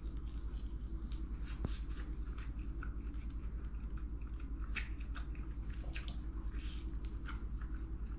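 A person chewing and biting firm braised meat close to the microphone: scattered short wet clicks and smacks over a steady low hum.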